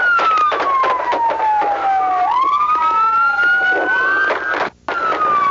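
Police car siren in a slow wail: the pitch falls over about two seconds, then sweeps quickly back up, twice, over a run of sharp clicks. The sound cuts out for a moment near the end.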